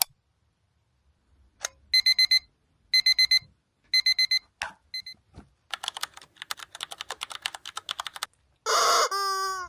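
Electronic alarm beeping in three bursts of four quick beeps, about a second apart. A run of quick clicks or taps follows, and then a short pitched sound near the end.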